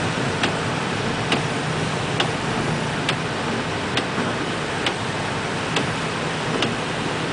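Steady road and engine noise inside a moving car's cabin, with a sharp tick repeating evenly about once a second.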